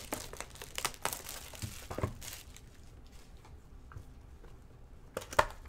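Crinkling and tearing of trading-card packaging as a box and packs of football cards are opened and handled by hand. A dense run of sharp crackles comes first, then quieter handling, then a few more crackles near the end.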